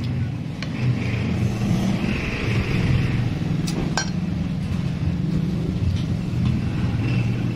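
Low, steady rumble of a motor vehicle engine running, with a couple of light clinks of tableware around four seconds in.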